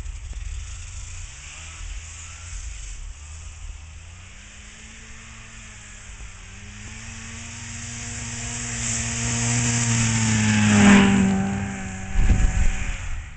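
1970 Ski-Doo Olympic 399 snowmobile's two-stroke engine, faint at first, then rising in pitch and growing louder as the sled comes back toward the camera. It passes close about eleven seconds in, and its pitch drops as it goes by. A moment later comes a second or so of low buffeting on the microphone as thrown snow and wind hit it.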